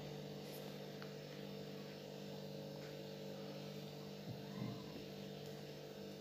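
Steady low electrical hum with no clear working sounds, and a faint brief sound about four and a half seconds in.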